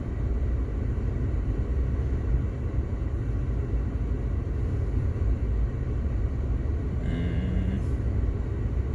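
Steady low rumble in the cabin of a stopped car with its engine idling. A brief pitched tone sounds for under a second about seven seconds in.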